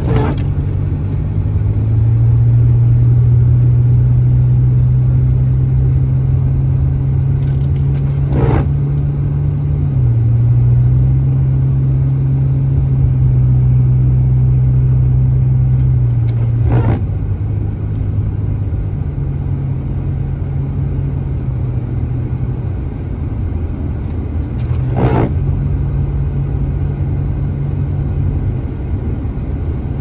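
Steady low drone of a car's engine and tyres heard inside the cabin while driving on a snow-covered road. Windshield wipers sweep across the glass about every eight and a half seconds, each sweep a brief swish.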